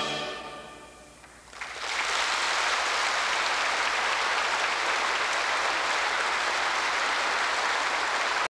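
The final chord of an orchestra and choir dies away, then audience applause breaks out about two seconds in and goes on steadily until it cuts off suddenly.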